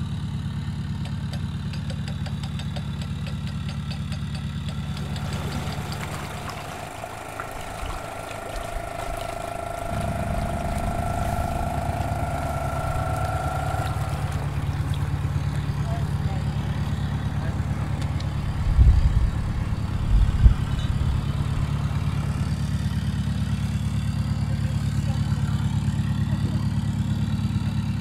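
Narrowboat diesel engine idling steadily, easing off for a few seconds and then picking up again, with two heavy knocks about two-thirds of the way through.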